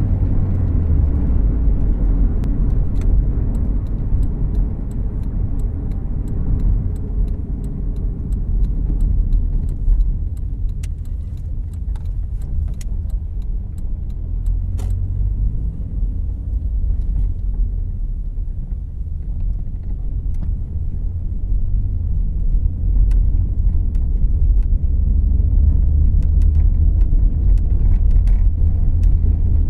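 Cabin sound of a 2014 Volkswagen Jetta Clásico on the move: a steady engine and road rumble that eases off around the middle and grows louder again in the last several seconds, with scattered small clicks and rattles.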